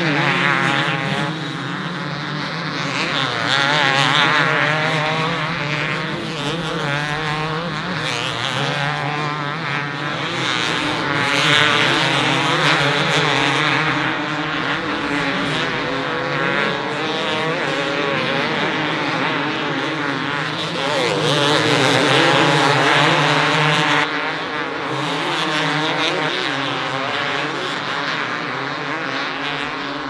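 Several two-stroke motocross bikes racing, their engines revving up and down through the gears as they pass, with several engine pitches rising and falling over one another.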